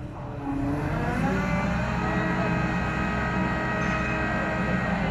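Diesel engine of a crane revving up about a second in, then running steadily at higher speed as it takes up the load of a coated steel pipe.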